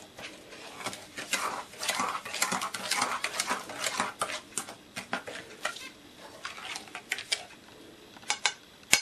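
Metal spoon clinking and scraping against an enamel bowl while stirring a wet mixture of semolina, sugar and water. The clinks come fast at first, thin out after about five seconds, and end in a few separate sharp taps.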